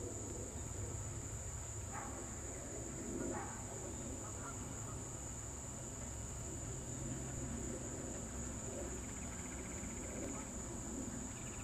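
Insects droning steadily at a high pitch in a summer pasture, with a few short faint calls about two and three and a half seconds in.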